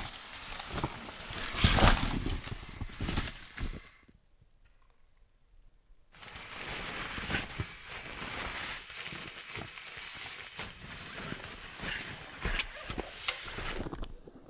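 Rustling, shuffling and light knocks of someone moving about inside a tent. The sound drops to near silence for a couple of seconds about four seconds in.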